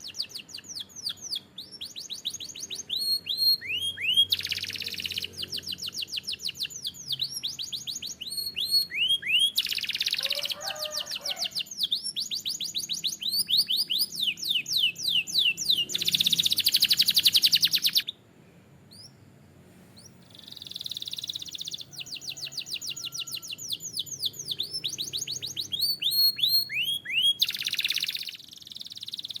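Domestic canary singing: fast rolling trills of rapidly repeated notes broken up by quick downward-sliding notes, with a short pause about two-thirds of the way through before the song resumes.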